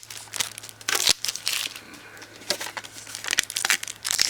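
Foil Pokémon booster pack wrapper crinkling irregularly as it is handled and torn open, with the loudest crackle about a second in.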